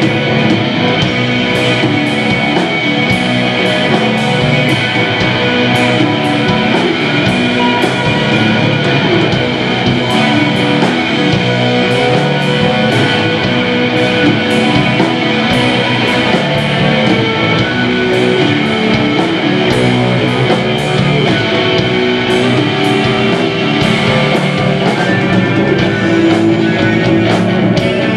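Live rock band playing an instrumental passage: two electric guitars, bass guitar and drum kit, with cymbals struck on a steady beat and no singing.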